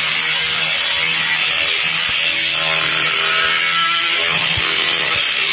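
Flexible-shaft rotary tool running a small drum bit against a Suzuki RGR 150's metal crankcase half, a steady grinding noise over the tool's low motor hum.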